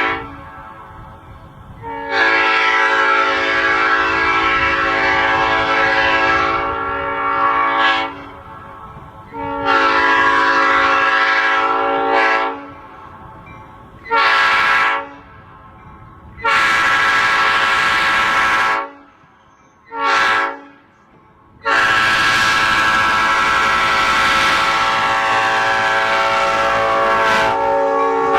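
Nathan P5 five-chime train air horn blowing a string of long and short blasts, its chord steady in pitch, ending in one long held blast of about six seconds.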